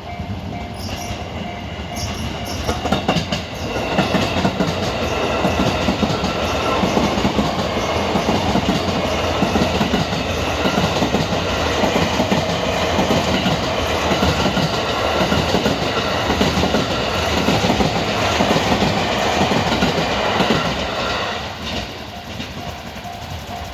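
Electric passenger train passing over a Japanese railway level crossing, its wheels clattering over the rail joints for about eighteen seconds. As the train clears, near the end, the crossing's electronic warning bell comes through again, ringing in steady even pulses.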